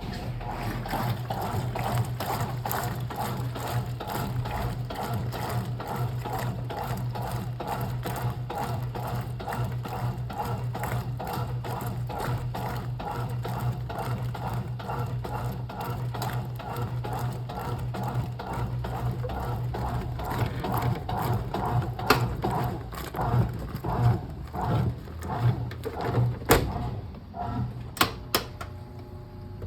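Brastemp Clean top-loading washing machine agitating on a delicate wash cycle: a steady motor hum with a fast, even churning, which breaks into separate uneven pulses about twenty seconds in. A few sharp clicks come near the end.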